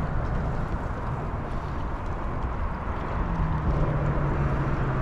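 Steady wind rumble and open-water noise from a fishing boat, with a low hum coming in about three seconds in and sliding slightly lower in pitch.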